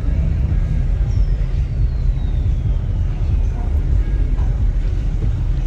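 Steady low rumble of a car engine and exhaust, with a faint whistle falling in pitch about a second in.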